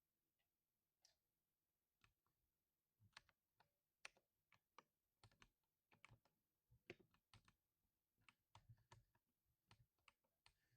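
Mechanical keyboard being typed on: a few scattered keystrokes, then a faster irregular run of typing from about three seconds in.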